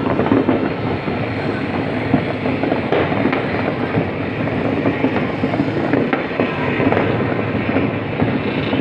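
Many distant fireworks going off at once, blending into a steady, dense crackle of small pops with a few sharper bangs.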